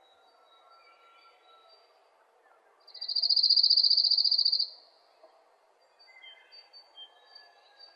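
An insect trill: one fast, pulsing, high-pitched buzz lasting about two seconds, starting about three seconds in. Faint bird chirps sound around it.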